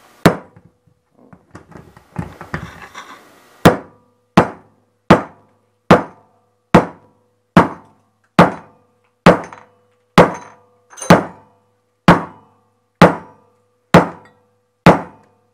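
Hammer striking a hard pyrite-bearing ore rock on a workbench to break it: one blow, then a few seconds later a steady run of about fourteen sharp blows a little under a second apart.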